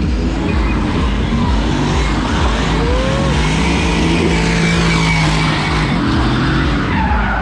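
Nissan Silvia S15 drift car's turbocharged SR20 four-cylinder engine revving up and down through a drift, holding a steady high note for about two seconds in the middle, with tyres squealing and skidding on wet asphalt.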